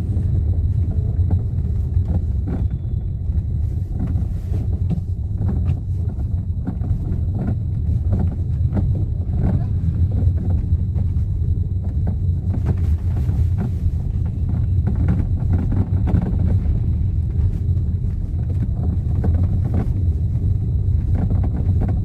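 Hyundai Elantra driven over a rough road: a steady low road rumble with irregular knocks from the steering column. The knocking is the same noise as a worn reduction gear, and it comes from a worn flexible coupling (damper kit) in the electric power-steering column.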